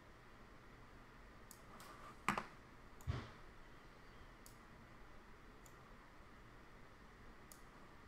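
Scattered single clicks of a computer mouse and keyboard, faint, with two louder knocks about two and three seconds in, the second with a dull low thud.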